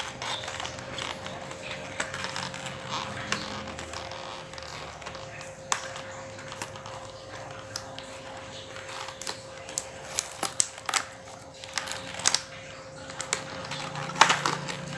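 Cardboard retail box of an external hard drive being opened by hand: scattered sharp clicks and taps with rustling of cardboard and plastic packaging, the loudest clicks near the end.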